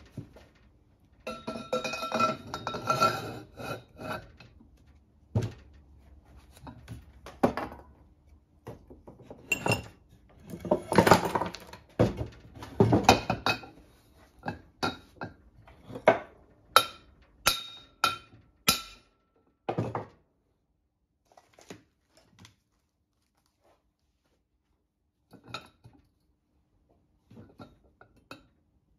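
Steel pipe and steel axle shaft clanking and ringing as the pipe is handled and slid over the shaft against the bearing, to drive the new bearing on. A ringing clatter comes first, then a run of sharp metallic knocks in the middle, and the last third is mostly quiet with a few light clicks.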